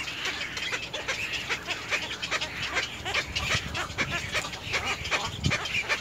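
Black-crowned night herons calling at the nest: a rapid, continuous run of short, harsh calls, with a few lower squawks.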